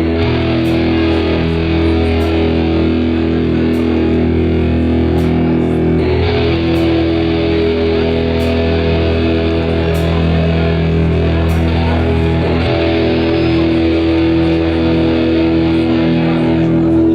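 Rock music led by electric guitar, with long held notes over a steady low drone. The texture shifts about six seconds in and again past the middle.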